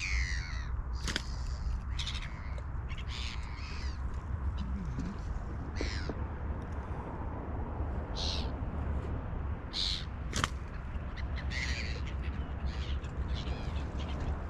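Birds calling overhead: a dozen or so short, harsh calls scattered through, over a steady low rumble. There is a single sharp click about ten seconds in.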